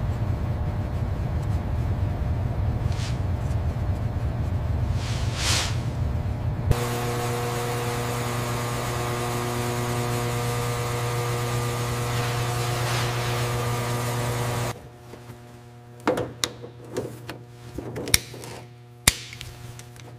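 A steady low hum with two short whooshes. About a third of the way in it changes to an electrical-sounding hum of several steady tones. About three quarters of the way in it drops to a quiet background with scattered light clicks and taps.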